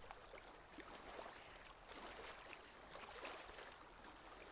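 Faint water-themed ambient background track: a soft, even trickling-water texture with small scattered flecks.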